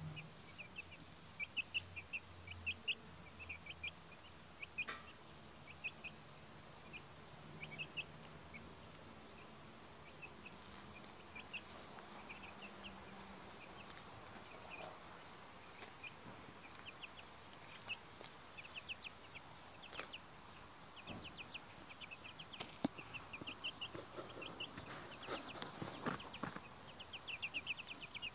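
Young chicks peeping: short high-pitched cheeps, scattered at first and coming in quicker runs near the end, with a few brief rustles shortly before the end.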